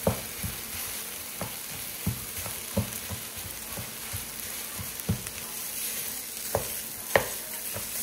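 Ground Italian sausage and onions sizzling in a hot skillet while a wooden spatula breaks up the meat, knocking against the pan every second or so at uneven gaps.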